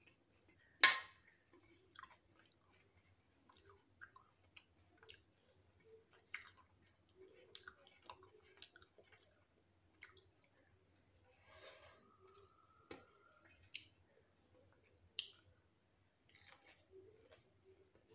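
A person chewing a mouthful of rice and chillies, with scattered soft mouth clicks and smacks. One much sharper click comes about a second in.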